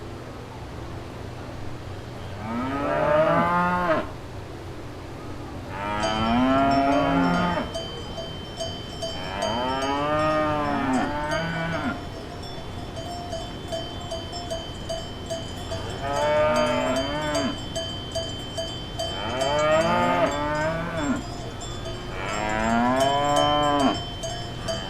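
Cows mooing, about six long moos a few seconds apart, each rising and falling in pitch. From about six seconds in, a steady high ringing tone with light tinkling runs under the moos.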